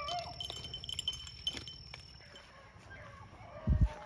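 Rabbit-hunting beagle baying faintly off in the brush: a wavering call at the start and a longer held one near the end. A short low thump comes just before the end.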